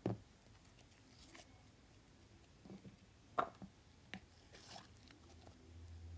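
Slime being poked and pressed, a few sharp clicks and soft squishy crackles. A low hum comes in near the end.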